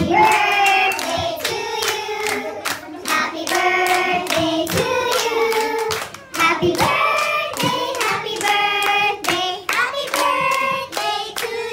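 A group of people singing together while clapping their hands in time, the claps coming steadily several to the second. Singing and clapping dip briefly about halfway through, then carry on.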